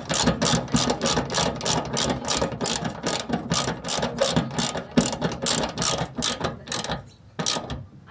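Socket ratchet clicking quickly and evenly, about five clicks a second, while driving the nuts that hold the petrol pump unit to the fuel tank. The clicking stops about seven seconds in, then one more single click.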